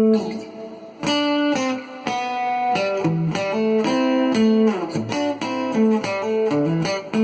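Cort GA5F-MD acoustic-electric guitar being played: a ringing chord dies away, then a melodic run of picked single notes and short chord phrases begins about a second in.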